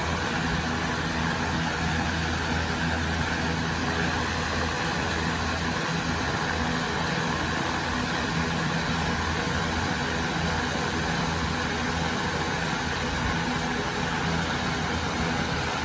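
Greenhouse exhaust fan and circulating fan running steadily: a low, even electric motor hum under a constant rush of moving air.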